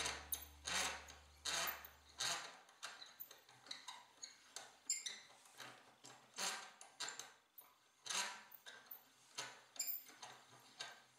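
The hand-cranked gear train of a small brass-geared orrery clicking and ticking as the crank is turned, about two uneven clicks a second. Faint background music fades out about two seconds in.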